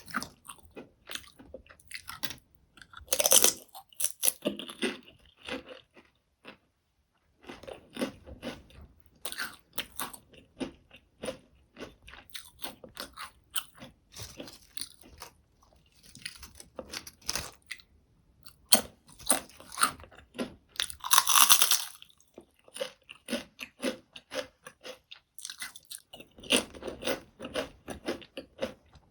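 Close-miked crunching and chewing of salty potato chips: repeated crisp bites and crackling chews, with the loudest crunches about 3 seconds in and again about 21 seconds in.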